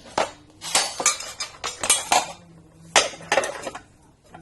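Pieces of metal stock clinking and clanking as they are handled and set down: about half a dozen sharp metallic knocks with short ringing, unevenly spaced.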